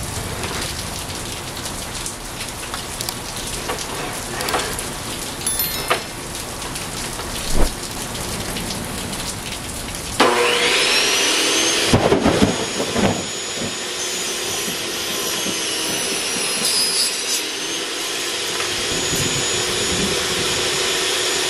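Heavy rain falling steadily, with a few knocks, then about ten seconds in a Kobalt benchtop table saw is switched on, its motor spinning up with a rising whine and then running steadily as PVC boards are fed through the blade for angled cuts.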